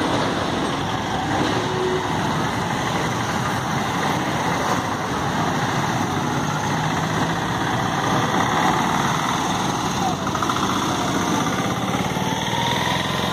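A motor vehicle's engine running steadily under road and wind noise, as from a vehicle driving along a road.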